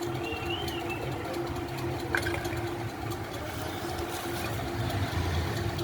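Steady low mechanical hum, like an engine running, with a held tone through it; a faint high chirp right at the start and a single click about two seconds in.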